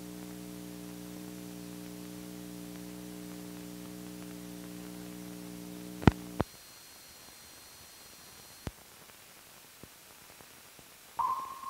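Steady electrical hum with evenly spaced overtones under film-soundtrack hiss. It cuts off with two sharp clicks about six seconds in, leaving fainter hiss with another click. A short high tone begins near the end.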